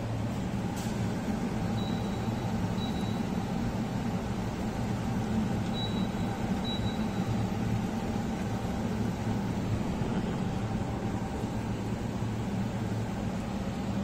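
Carrier floor-standing air conditioner indoor unit running with a steady fan hum. Four short high beeps in two pairs, about two and six seconds in, come from its control panel as buttons are pressed.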